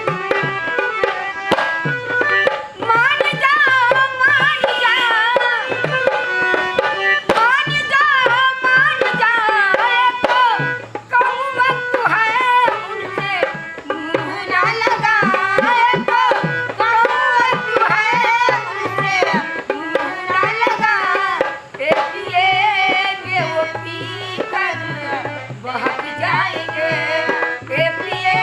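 Indian song music with tabla drumming keeping a steady rhythm under a wavering melodic line.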